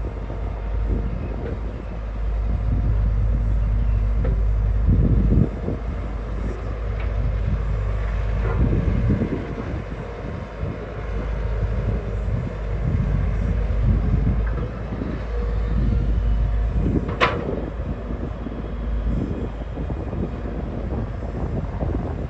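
Hyundai 220LC hydraulic excavator working, its diesel engine giving a steady low rumble that rises and falls, with irregular knocks and clatter and one sharp, loud clang about seventeen seconds in.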